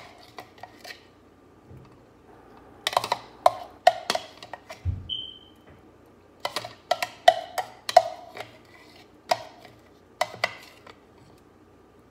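A utensil clinking and knocking against a dish or container over a dozen times at an uneven pace, each knock with a short ring, as red pepper dip is served out.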